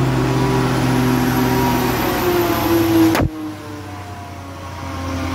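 Heavily loaded multi-axle lorry's diesel engine running at a steady pitch under load. About three seconds in, a sharp click, and the engine sound drops suddenly to a lower, quieter drone.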